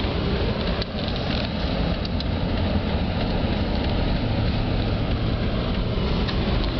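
Steady road and engine noise inside a moving car's cabin: a low, even rumble of the car driving over snow-covered streets.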